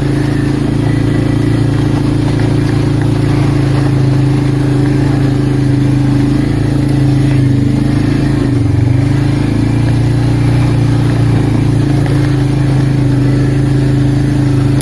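Arctic Cat 366 ATV's single-cylinder engine running steadily under way, with a brief drop in engine speed about eight seconds in.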